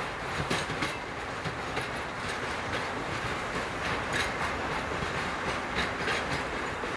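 Freight train of loaded tank wagons rolling along the track, a steady rumble of steel wheels with irregular sharp clacks as they pass over rail joints.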